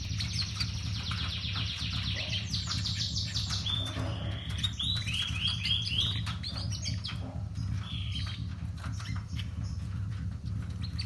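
Small caged songbirds chirping and trilling in fast repeated notes, with a run of short down-sliding whistles about four seconds in.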